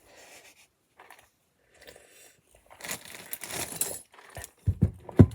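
Small plastic LEGO pieces rattling and clicking as they are rummaged through, then a few dull knocks near the end.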